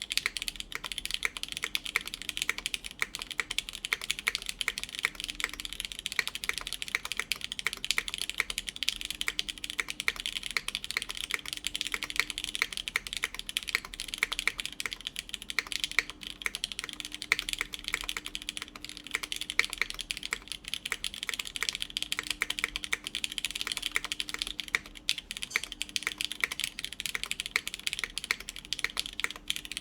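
Continuous fast typing on a mechanical keyboard with lubed Cherry MX Black linear switches, an aluminum half plate and GMK keycaps: a dense stream of key clacks and bottom-outs that starts abruptly.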